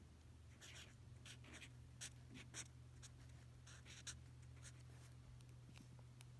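Felt-tip marker writing on sketchbook paper: faint, short scratchy strokes one after another as the letters of a word are drawn, over a steady low hum.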